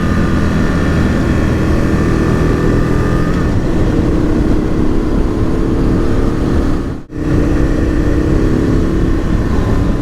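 Aprilia RSV Mille R's V-twin engine running through its aftermarket Akrapovic exhaust while the bike is ridden, its note easing down slightly and then holding steady. Heavy low rumble runs underneath, and the sound drops out for a moment about seven seconds in.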